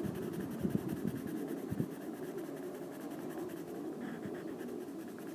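Coloured pencil scribbling back and forth on paper in steady short strokes: a Winsor & Newton pencil laying down colour.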